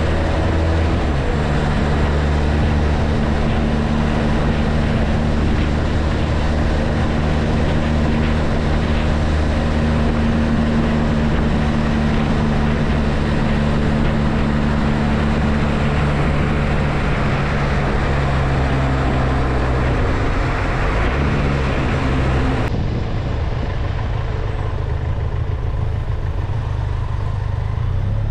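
Benelli TRK 502 parallel-twin engine running at a steady road speed, under a steady rush of wind and road noise from the wet surface. The engine note sags as the bike slows past the middle. About three-quarters in, the wind and road hiss suddenly fall away, leaving a lower, quieter engine sound at slow speed.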